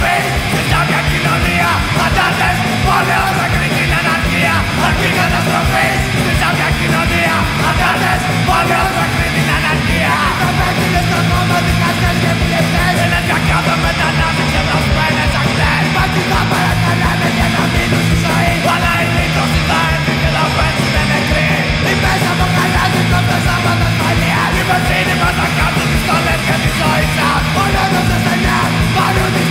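Loud, fast punk music: rapid drumming under distorted guitars, with shouted vocals, continuous throughout.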